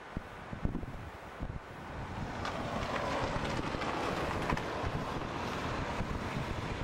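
A car on the road, its rushing tyre and wind noise swelling about two seconds in and then holding steady, with wind buffeting the microphone.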